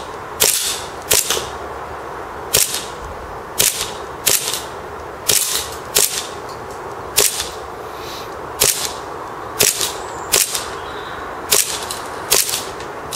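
Tokyo Marui MEU 1911 gas blowback airsoft pistol with a full metal kit, fired semi-auto on propane: sharp cracks of the shot and slide cycling, about one a second at an uneven pace, fourteen or so in all. The gun and its extended magazines are cold, yet it keeps cycling.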